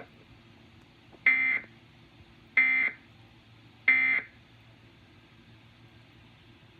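Emergency Alert System end-of-message code: three short bursts of digital data tones, about a second apart, marking the end of the test message.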